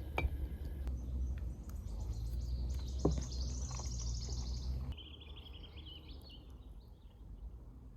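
Small birds singing: a fast high trill, then a lower chirping phrase. Under them is a steady low rumble that stops abruptly about five seconds in.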